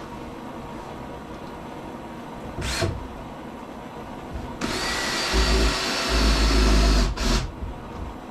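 Power drill driving pocket-hole screws into a wooden table top: a short burst about three seconds in, then a run of about two and a half seconds past the middle, and another short burst near the end.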